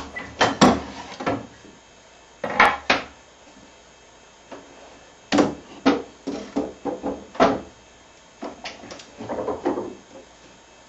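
Wooden clunks and knocks of a twin-screw face vise being worked, its hard maple front jaw moved and clamped, in four short bursts with pauses between.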